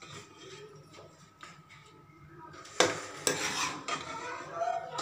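Steel ladle scraping and scooping curry in an aluminium cooking pot, with two sharp metallic knocks about three seconds in.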